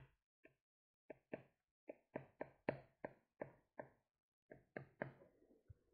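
Faint taps of a stylus on a tablet screen during handwriting: about fifteen short ticks at an uneven pace.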